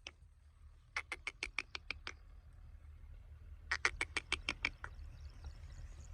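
Francolin calling: two runs of rapid, clipped notes, about nine a second, each run lasting about a second. The first starts about a second in, the second near the middle. A steady low hum lies underneath.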